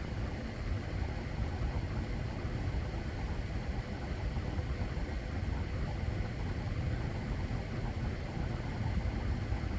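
Steady airflow noise of an electric fan and an air conditioner running, an even whoosh with a low rumble.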